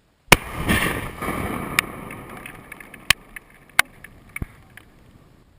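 An explosive demolition charge detonating: a sudden loud blast followed by a rumble that fades over about two seconds, then a few scattered sharp cracks.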